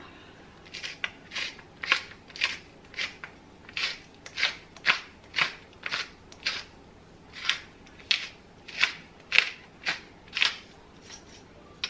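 Hand pepper grinder grinding black peppercorns: a short crunchy rasp with each twist, about two a second.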